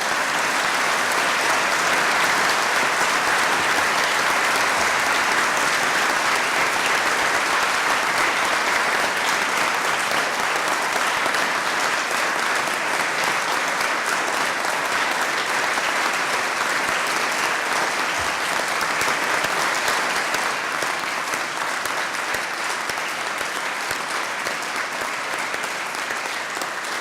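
A large audience applauding at length, steady throughout and tailing off near the end.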